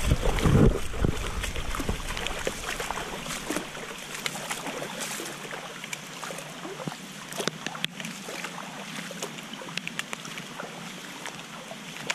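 Creek water trickling and lapping around a kayak, with scattered light ticks and knocks. A louder low rumble fills the first second or so.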